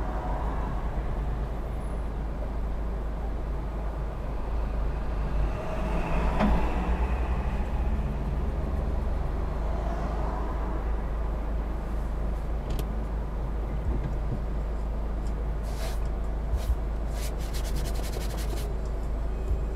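Steady low rumble of a car's engine and road noise heard inside the cabin as the car slows to a stop and stands idling at traffic lights, with the sound of other traffic rising and falling outside. A few sharp clicks come near the end.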